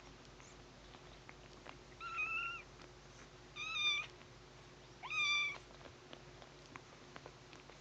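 A kitten meowing three times, high-pitched short meows about a second and a half apart.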